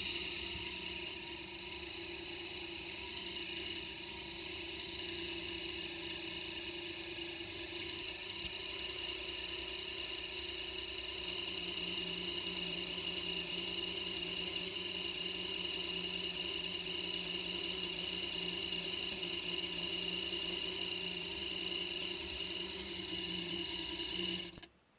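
Motorcycle engine idling steadily, then switched off a little before the end, cutting off suddenly.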